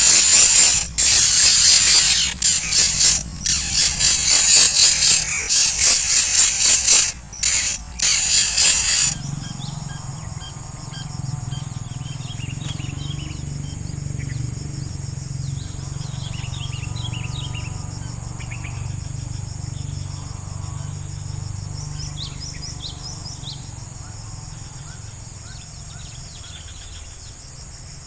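Loud rustling and crackling noise for about nine seconds, which then cuts off. Behind it is a steady high insect whine, with many short bird chirps and small calls scattered over it.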